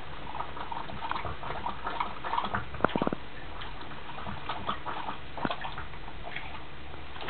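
Dog lapping water from a steel bowl: scattered small wet clicks and taps, with a quick run of sharper taps about three seconds in.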